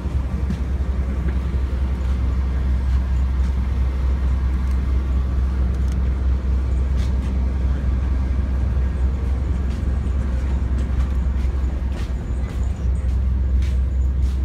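Steady low rumble aboard a passenger ferry under way: the ship's engine noise mixed with wind on the open deck, with a few faint clicks.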